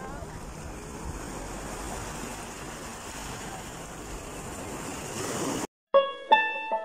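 Small waves breaking and washing up on a sandy beach, with wind on the microphone. A little before six seconds in, the surf cuts off and plucked-string music starts.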